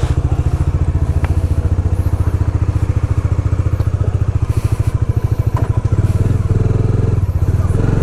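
Bajaj Dominar 400's single-cylinder engine idling with a steady, even beat, sounding clean and free of the valve-shim noise it was taken in for, picking up slightly about six seconds in.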